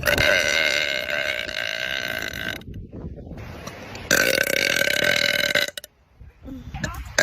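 A girl's long, drawn-out burps, held at a steady pitch: one lasts about two and a half seconds, and a second, about a second and a half long, starts about four seconds in.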